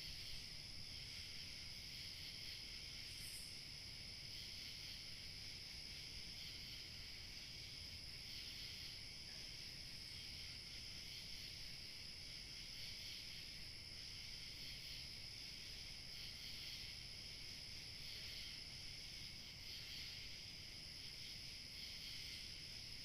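A night chorus of crickets and other insects, trilling steadily and without a break in several high-pitched layers.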